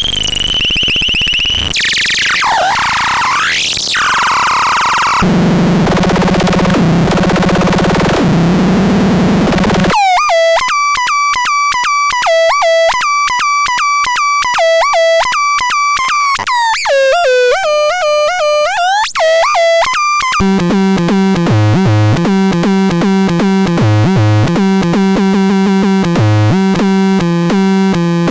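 Pharatron 2 electronic synthesizer sounds played in sequence: noisy sweeps that dip and rise at first, then a buzzy low drone, then fast stepped arpeggio tones with pitch bends, and near the end a repeating bass line under a quick melody.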